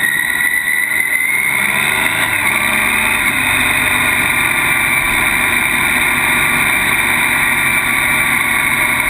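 Motorcycle engine running steadily under way, heard from a camera mounted on the bike near the front wheel, mixed with steady wind rush. The pitch rises a little over the first couple of seconds, then holds.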